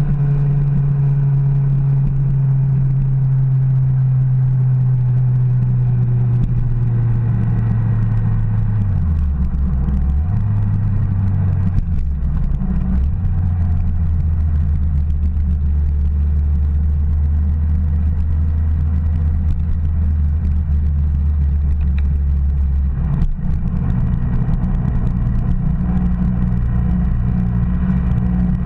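Sport motorcycle engine heard from a bike-mounted camera, running steadily at low revs with the rider off the pace. Its pitch drops about nine seconds in and holds lower for a while, over a steady low rumble.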